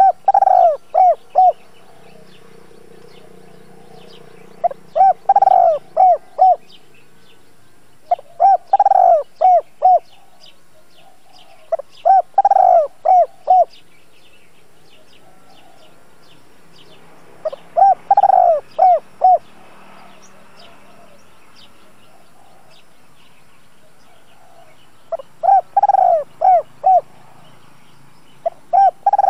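Spotted dove singing its cooing song, a phrase repeated six times with a seventh starting at the very end, a few seconds apart. Each phrase is a short lead note, one long swelling coo, then two or three quick clipped coos.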